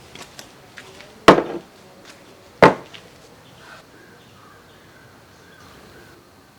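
Two heavy, sharp knocks about a second and a half apart, the first with a short rattling tail, after a few lighter clicks.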